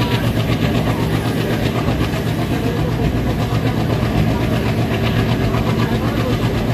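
WDG3A ALCO diesel locomotive's 16-cylinder engine chugging steadily on the move, a rapid pulsing beat over the train's running noise.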